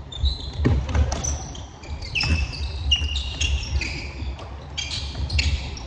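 Pickup basketball on a hardwood gym floor: sneakers squeaking in many short high chirps, over the repeated low thuds of the ball bouncing and players' footfalls.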